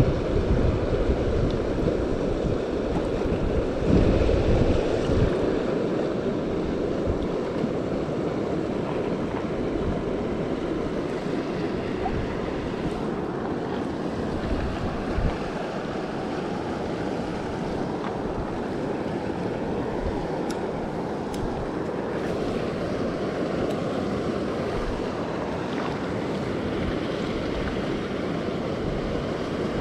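Steady rush of flowing creek water, with wind buffeting the microphone in an uneven low rumble.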